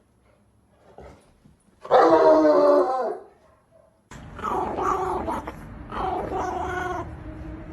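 A dog vocalizing: one loud, drawn-out call about two seconds in, then two shorter calls over a steady background hiss from about four seconds in.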